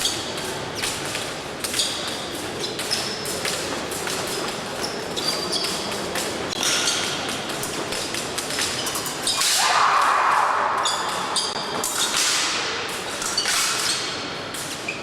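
Épée fencing: steel blades clicking and ringing against each other, mixed with the thuds of fencers' feet on the piste, many short hits in quick succession.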